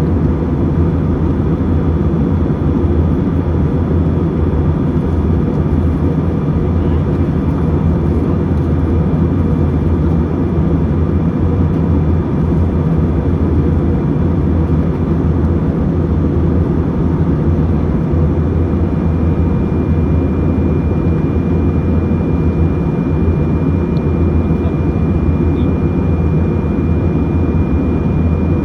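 Steady cabin noise of an airliner in cruise: a constant low rumble of engines and airflow with no breaks. A faint steady high whine joins about two-thirds of the way in.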